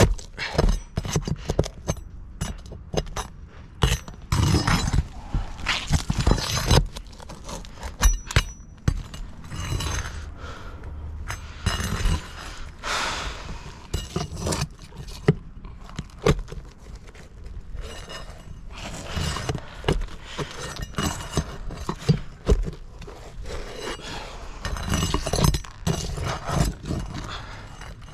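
Irregular scraping, clicks and knocks of roofing nails being worked loose and pried out from under asphalt 3-tab shingles, with a longer scraping stretch about halfway through.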